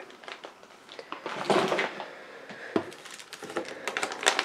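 Clear plastic parts bags crinkling and rustling as a hand sorts through them in an open cardboard kit box, with a single light knock about two-thirds of the way in.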